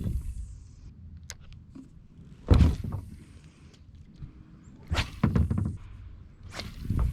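Three dull thunks, about two seconds apart, the first the loudest, with a low rumble between them: knocks against a plastic kayak's hull.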